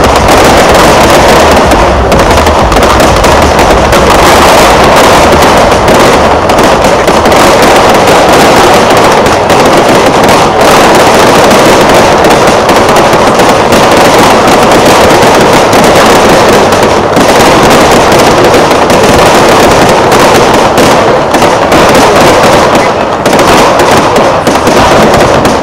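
Fireworks display going off, aerial shells and ground fountains together in a dense, continuous barrage of bangs and crackle, loud throughout.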